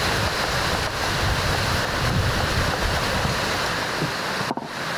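Wind buffeting the microphone: a loud, steady rush of noise with heavy low rumble. It drops out briefly near the end and carries on a little quieter.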